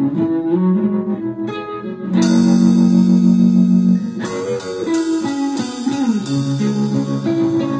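Electric guitars playing the slow, solemn opening of a song: picked notes, some bending in pitch, and a louder chord held for about two seconds near the middle.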